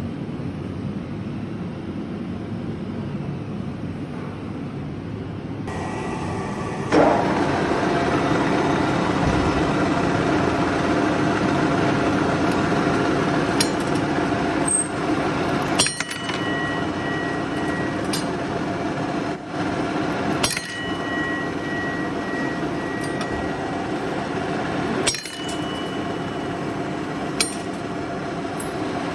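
Lathe running steadily, its motor and drive giving a hum with several steady tones that grows louder about seven seconds in. Sharp metallic clicks come every few seconds as the 5 mm steel wire is chopped to length.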